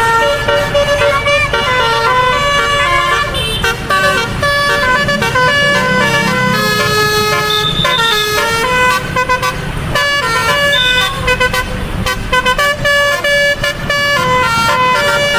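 Indonesian bus 'telolet' horn: a multi-tone air horn playing a quick melody of short notes that jump between pitches, over a steady low rumble.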